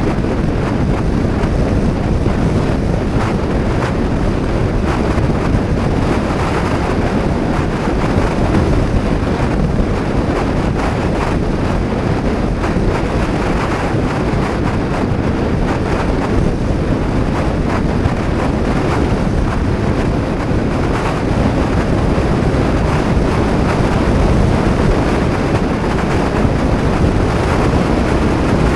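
Steady, loud wind rush over the microphone of an action camera on a moving Honda PCX 125 scooter at road speed.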